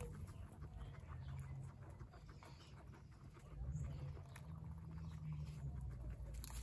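Guinea pigs rustling and nibbling in loose straw bedding: scattered soft ticks and crackles over a low steady rumble.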